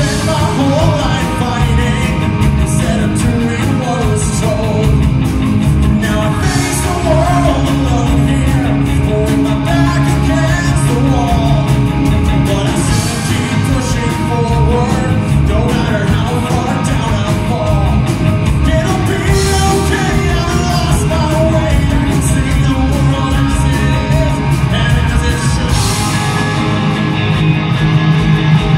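Live rock band playing loudly and steadily: electric guitars, bass guitar and drum kit, with a singer.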